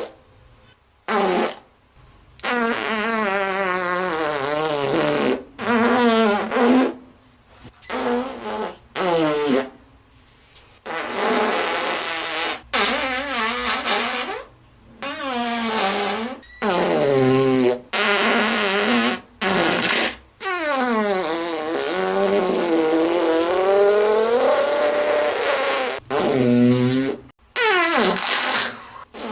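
Fart sound effects: a string of about a dozen flatulent blasts with a wavering, buzzing pitch, some short and some drawn out over several seconds, separated by brief pauses.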